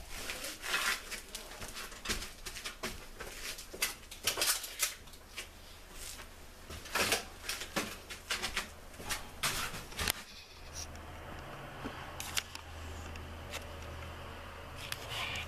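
Irregular clicks, taps and rustling of clothing and hands working close to the microphone beside a bus driver's seat. About ten seconds in they give way to a steady low hum with a few faint clicks.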